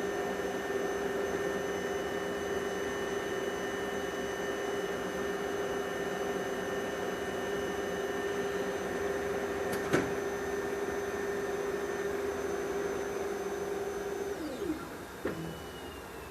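Ricoh Aficio 2232C colour copier running its forced self-check of the developer units and sensors: a steady mechanical whirr with a steady hum tone and a faint high whine. There is a single sharp click about ten seconds in, and near the end the motors wind down with a falling pitch as the check finishes.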